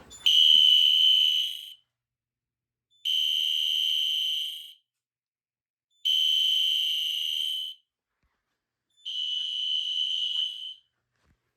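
Fire alarm control panel's trouble sounder beeping in a steady pattern: four long, high-pitched beeps about three seconds apart. It signals a trouble condition, set off by disabling a zone.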